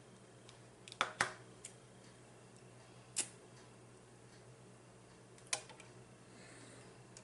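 A few sharp clicks and taps from handling kitchenware and food while tacos are topped: a quick double tap about a second in, then single clicks near three seconds and again about five and a half seconds in, with fainter ticks between.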